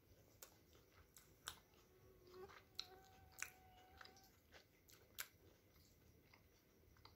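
Faint, wet chewing and small mouth clicks of someone eating a steamed chicken momo. A faint held tone sounds in the background for about a second and a half in the middle.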